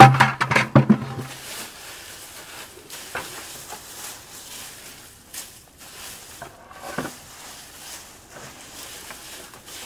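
Dry leaves, straw and shredded paper rustling as a bucket of compost browns is tipped onto the pile and spread by hand. It opens with a burst of loud knocks and clatter in the first second and a half, then settles into soft rustling with scattered small clicks.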